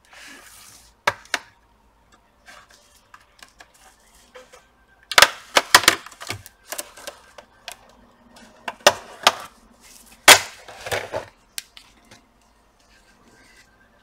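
Sharp plastic clicks and cracks as the bottom cover of an Acer Nitro 5 laptop is pried off with a thin sharp tool, the cover's clips snapping loose a few at a time with pauses between.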